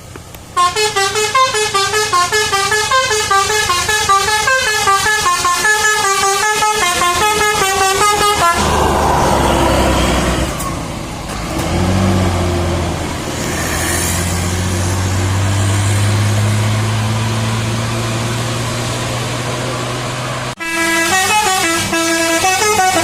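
Multi-tone Basuri 'telolet' bus horn playing a rapid stepping melody, which breaks off suddenly after about eight seconds. A bus engine then runs with its low note slowly rising, and the horn melody starts again near the end.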